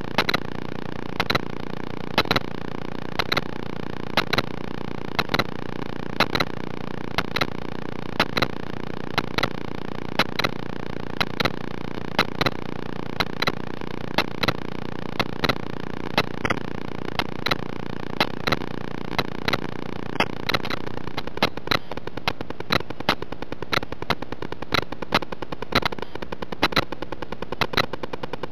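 Electrical noise in the camera's own recording: a steady hiss with sharp clicks about every two-thirds of a second, more crowded after about 21 seconds in.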